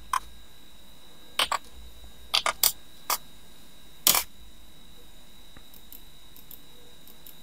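Computer keyboard keystrokes: about eight short, sharp key clicks, spaced irregularly over the first four seconds, over a faint steady high-pitched tone.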